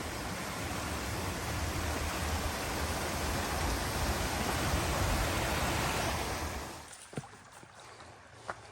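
Stream water rushing steadily, then falling away sharply about seven seconds in, leaving a quiet background with a couple of short faint ticks.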